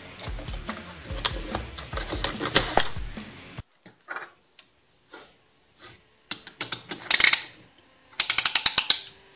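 Background music with a steady beat cuts off abruptly. It gives way to scattered metallic clicks from a ratchet-type piston ring compressor being tightened around the piston rings. A dense burst of clicks comes about 7 s in, and a quick run of ratchet clicks, about a dozen a second, comes near the end.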